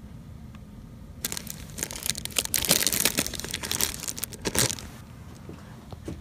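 Crinkling and crumpling as a cover is fitted over a cooking dish, starting about a second in and stopping near five seconds in.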